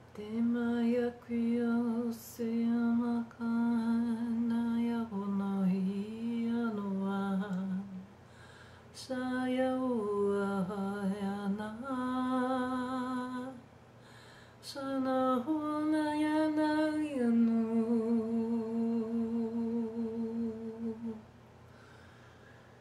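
A woman's voice humming long wordless held notes in three phrases, each note steady, the pitch stepping between a few notes with short pauses between phrases.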